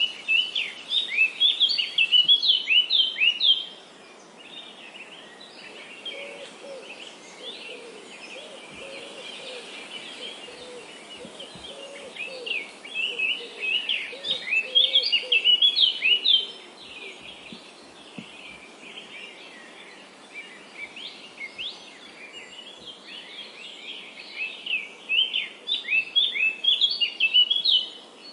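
Small songbirds chirping: rapid runs of short, high, down-sliding chirps in three loud bouts about twelve seconds apart, with quieter scattered chirps between them and a fainter, lower wavering call under the middle stretch.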